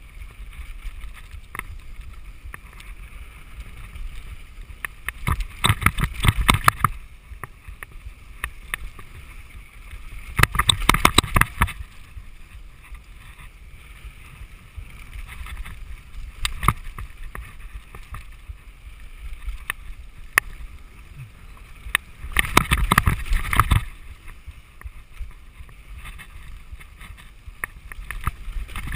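Mountain bike riding fast down a dry dirt trail: a steady rumble of tyres and wind on the microphone, broken three times by a couple of seconds of hard clattering and rattling as the bike goes over rough ground.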